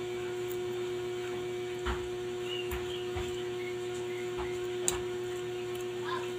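Steady electrical hum, with a few faint clicks as eggshell is picked off a boiled duck egg by hand.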